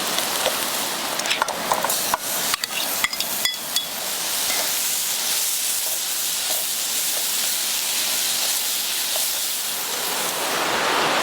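Food sizzling in a pan over a campfire, with clicks and knocks from a utensil during the first few seconds.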